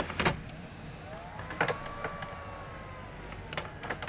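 Sharp clicks and knocks of power cords being plugged into a rack server's power supplies, several separate ones, the loudest right at the start. A faint whine rises about a second in and slowly falls away.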